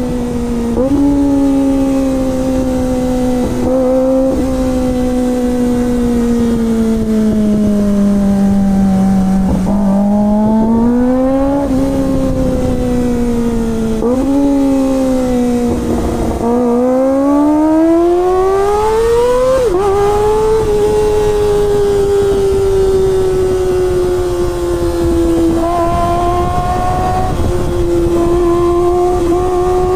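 Kawasaki ZX-25R's 249 cc inline-four engine running under way. Its pitch climbs under throttle several times and drops or jumps sharply at the gear changes, settling into a steadier note about two-thirds of the way in before rising again near the end.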